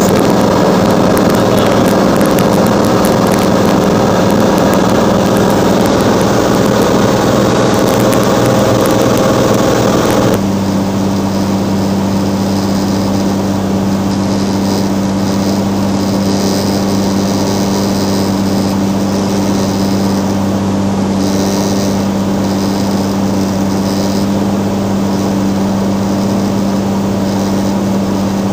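Cirrus SR22's six-cylinder piston engine and propeller droning steadily, heard inside the cabin. About ten seconds in the sound changes abruptly to a slightly quieter, smoother hum dominated by one steady low tone.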